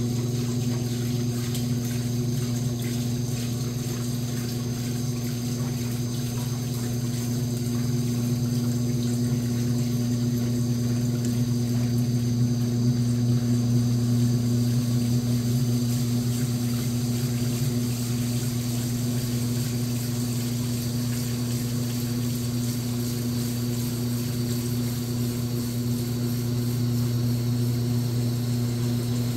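Washing machine running, a steady motor hum with the sound of water moving through it.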